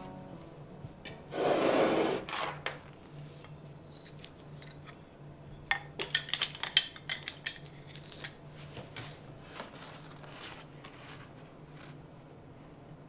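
A cloth towel swishing as it is spread and smoothed over a wooden table, then wooden spoons clattering together as they are set down, a quick run of light clicks about six seconds in.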